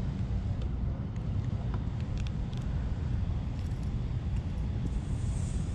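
Steady low wind rumble on the microphone, with a few light metallic clicks as pliers work a lure's hooks out of a fish's mouth.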